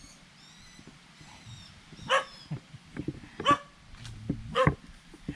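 A dog barking, three short sharp barks a little over a second apart in the second half.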